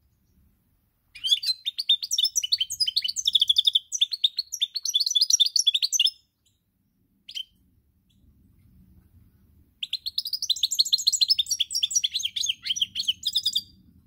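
European goldfinch singing: two long phrases of fast, twittering song, with a single short note between them.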